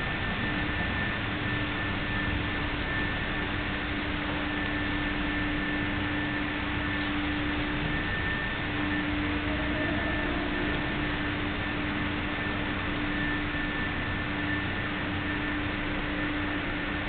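Steady hiss with a faint constant hum underneath; nothing else happens.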